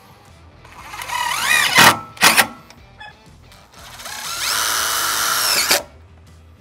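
Cordless drill driving self-tapping screws through carpet into a metal rack rail. The motor whines up to speed about a second in, gives a short second burst, then makes a longer steady run of about two seconds that sags and stops near the end.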